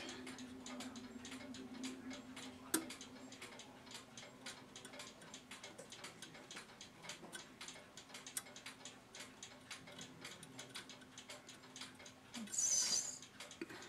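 Faint, even ticking of a clock, about four ticks a second, over a low steady hum, with a brief hiss near the end.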